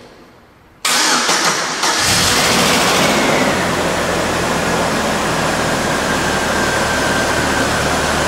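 A 2001 GMC Sonoma's freshly installed 2.2-litre four-cylinder engine starting for the first time: the starter cranks it about a second in, it catches after about a second of cranking and settles into a steady idle with a faint high whine.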